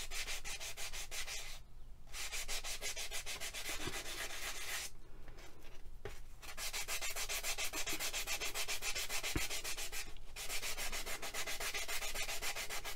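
A fine-grit foam-backed sanding pad rubbed quickly back and forth over a polymer clay piece in short, even strokes. It stops briefly three times: near 2 seconds in, around 5 to 6 seconds, and near 10 seconds.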